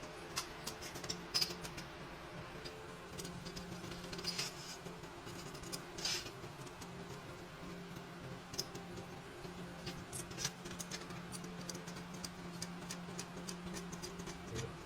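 Scattered light clicks and taps, a few sharper ones among them, over a steady low hum.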